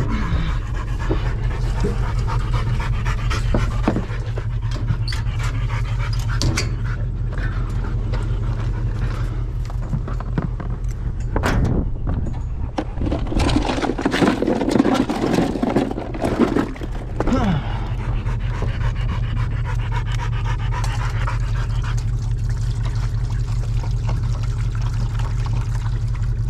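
Deer hounds panting hard, winded from running and fighting, over a steady low hum. A few knocks and rattles come around the middle.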